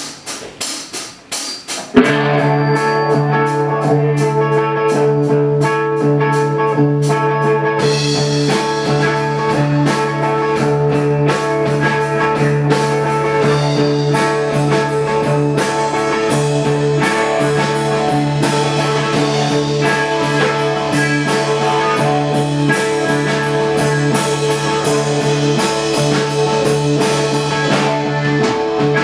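A rock band rehearsing an instrumental passage: electric guitar, electric bass and drums. A few separate hits open it, then the full band comes in about two seconds in and plays on steadily, with the bass getting deeper about eight seconds in.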